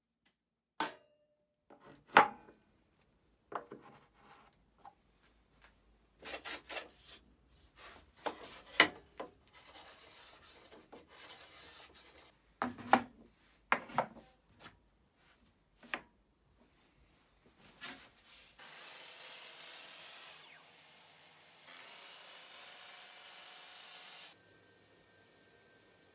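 Aluminium bench dogs set into the holes of an MDF bench top, giving a string of sharp clicks and knocks. Near the end come two stretches of steady rushing noise, a few seconds each.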